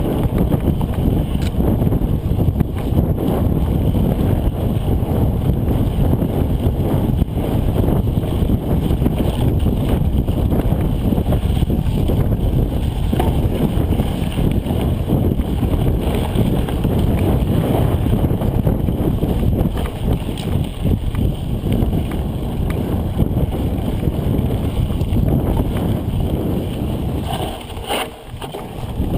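Steady wind buffeting on the microphone mixed with rattling and jolts from a mountain bike descending a rough trail. The noise dips briefly near the end, with a sharp click.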